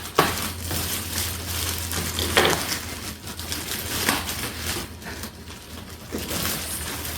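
Packing material rustling and crinkling as a ceramic table torch is unwrapped by hand, with a few sharper clicks of handling.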